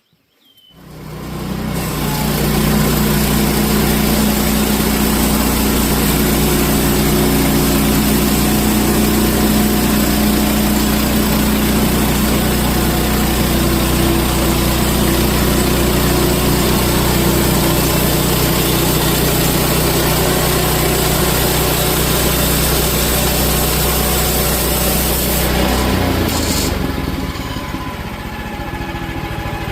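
Gas engine of a Woodland Mills portable band sawmill running under load as the band blade cuts through a log: a steady engine hum with a broad hiss over it. About 26 seconds in, the cutting hiss stops and the engine runs lighter and a little quieter.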